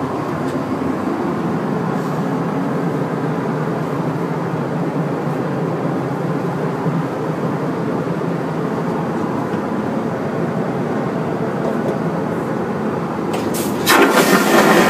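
Steady drone of an airliner cabin heard inside the lavatory. Near the end, the aircraft's vacuum toilet flushes with a sudden loud rush, sucking the trail of toilet paper off the roll and down the bowl.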